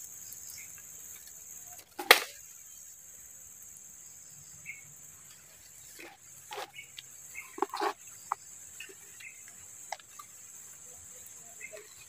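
Quiet streamside ambience with a steady high insect drone and faint scattered chirps. A few sharp clicks or taps break in, the loudest about two seconds in and a cluster between six and eight seconds.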